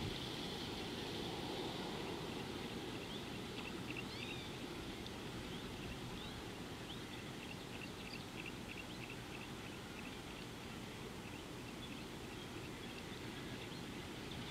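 Birds chirping in many short, high notes, some quick and clustered, over a steady low background hiss. The chirps thin out near the end.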